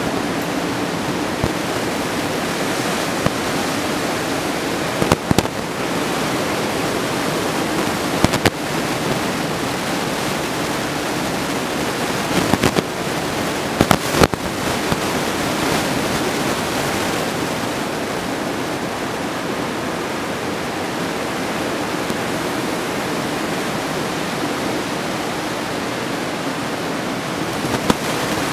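Ocean surf breaking on a reef, a steady rushing noise with a few short sharp crackles on the microphone about 5, 8, 12 and 14 seconds in.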